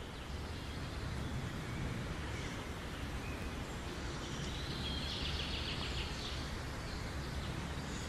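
Outdoor ambience: a steady low rumble with small birds chirping, including a quick trill of rapid notes about halfway through.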